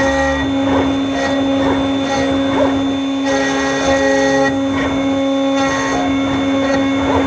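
Shapeoko 5 CNC router engraving a golf putter: the spindle runs with a steady whine while the stepper motors drive the axes, their higher tones starting and stopping every second or so as the machine changes direction.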